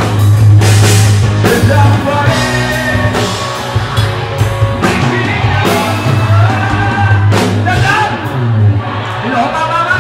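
Rock song with singing: a voice over a loud band with heavy bass and drums.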